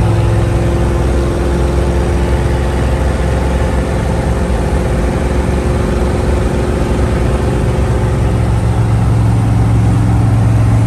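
Inside the cab of an old Chevrolet cruising at highway speed: a steady low engine drone under loud road and wind noise, a little rougher for a few seconds in the middle.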